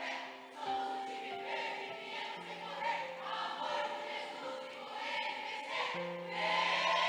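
A group of voices singing a song together, with long held notes, swelling louder about six seconds in.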